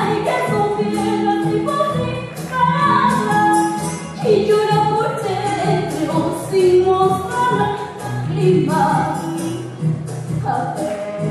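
A young girl singing solo, amplified through a headset microphone, over an instrumental accompaniment with a quick, steady beat.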